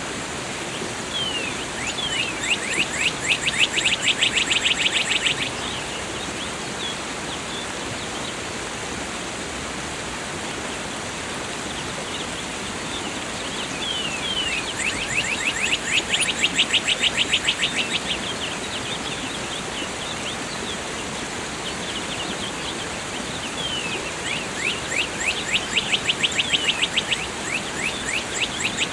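Rushing waterfall water runs steadily while a songbird sings three times, each song a few falling notes running into a fast, even trill lasting about three seconds.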